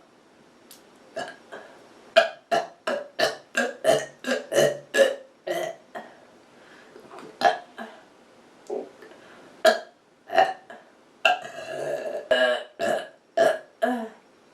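A person burping over and over. There is a rapid run of short burps, about three a second, then a few single ones, a longer drawn-out burp a little past two-thirds of the way through, and a quick run of short burps near the end.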